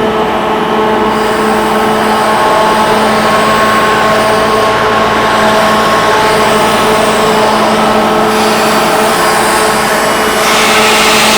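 Rotary screw air compressor running: a loud, steady machine drone with several constant tones under a dense rushing hiss, the hiss growing stronger near the end.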